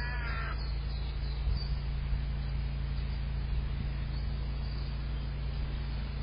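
A crow gives a single harsh caw of about half a second at the start, over a steady low hum.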